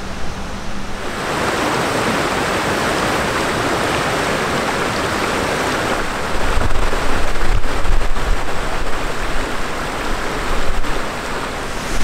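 Water of a shallow rocky river rushing over rapids, a steady even hiss that starts about a second in. A low rumble joins it about six seconds in.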